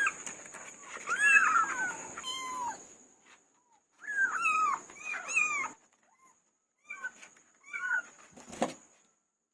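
Several kittens mewing, high-pitched calls that overlap in bursts with short gaps between them. The calls thin out later, and there is a single knock near the end.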